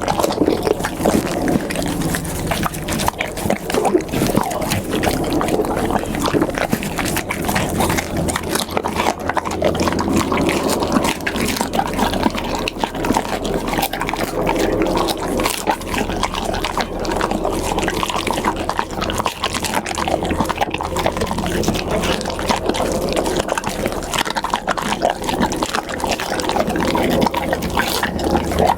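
A pit bull eating: continuous chewing and mouth smacking, a dense stream of short clicks that does not let up.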